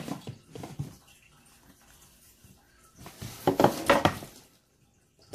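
A rigid cardboard gift box being opened: a few light handling knocks at first, then about three seconds in, a burst of cardboard scraping and rustling lasting about a second and a half as the lid comes off.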